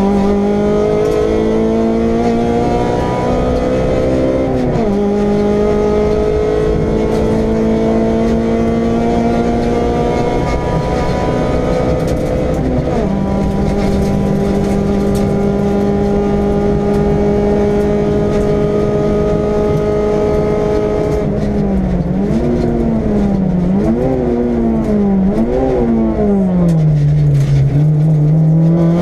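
Honda Civic VTi EG6 rally car's 1.6-litre VTEC four-cylinder at full throttle, heard inside the cabin: the revs climb through long pulls with upshifts about five and thirteen seconds in. From about two-thirds of the way through the revs rise and fall repeatedly, dipping low near the end before climbing again.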